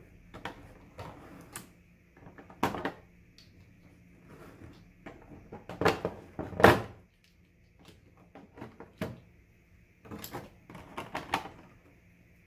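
Accessories being pulled out of a clear moulded plastic packaging tray: irregular plastic clicks, knocks and rattles, loudest a little past the middle.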